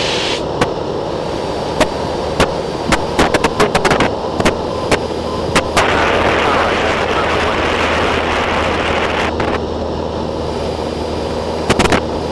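Cessna 172N in cruise, heard from a camera on its wing: the steady drone of its four-cylinder Lycoming engine and propeller under a rush of slipstream wind. Sharp cracks and pops of wind buffeting the microphone break in, in a cluster from about half a second to six seconds in and again briefly near the end.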